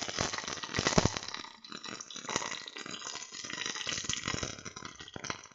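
Chopped green chillies, onion, garlic and dried red chillies sizzling in hot oil in a steel pot. The oil spits and crackles throughout, with the sharpest pop about a second in. This is the tempering (tadka) stage of the frying.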